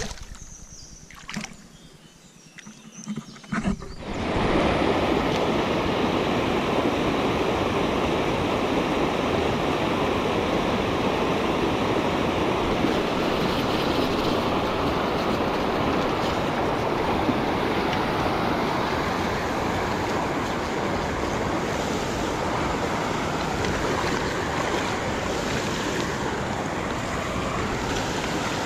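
Shallow stream water rushing over rocks in a riffle: a steady rush that starts suddenly about four seconds in. Before it, a few brief splashes and knocks in quieter water.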